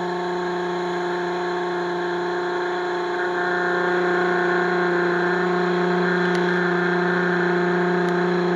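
Pressure washer running steadily: a constant motor hum under the hiss of the high-pressure jet blasting soil and debris away from the bottom of a wooden fence to cut a trench. The spray gets a little louder a few seconds in.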